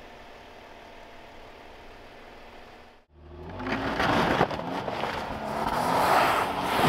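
Toyota Tundra pickup's engine running steadily, then, after a cut about three seconds in, revving louder and rising in pitch as the truck works to climb out of soft snow on traction boards, with a sharp knock partway through.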